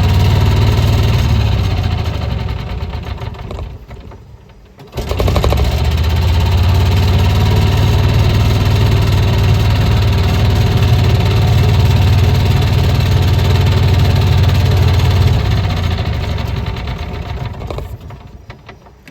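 Gas golf cart engine running steadily. It dies away about four seconds in, starts again abruptly a second later, runs on, then fades out near the end.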